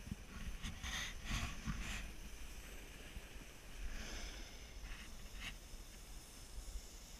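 Snowboard sliding over hard-packed snow, its edge scraping in hissy bursts about a second in and again around four to five seconds, over a low wind rumble on the microphone.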